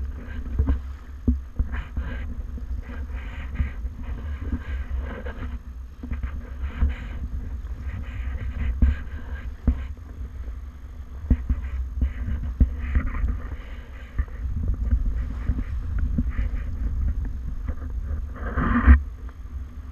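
Wind buffeting the microphone and water rushing along the hulls of a sailing catamaran under way, with scattered short knocks and one louder rush of noise near the end.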